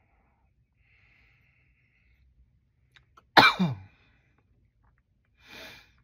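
A man coughs once, loudly and harshly, about three and a half seconds in, the cough falling in pitch over about half a second. A softer breath follows near the end.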